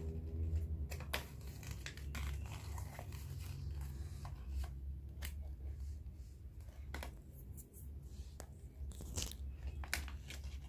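Small foil wrapper crinkling and tearing in short scattered crackles as it is peeled open by hand, over a low steady hum.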